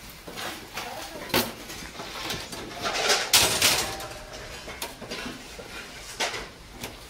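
Metal skewers clinking and a knife blade scraping roasted chicken off them onto a metal counter, in irregular clanks and scrapes; the loudest is a harsh scrape about three seconds in.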